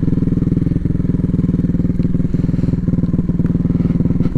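Dirt bike engine running steadily at low revs, ridden at a slow pace, with a few faint clicks.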